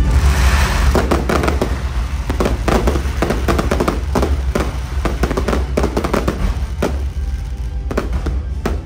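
Fireworks going off in rapid succession, many sharp pops and bangs that thin out toward the end, over loud music with a strong bass.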